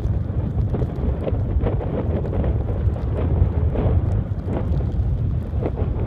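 Snowstorm wind buffeting the microphone, heard as a steady low rumble.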